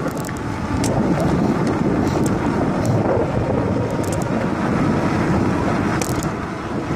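Wind buffeting a handheld phone's microphone on a moving bicycle: a steady low rumble, with a few faint ticks.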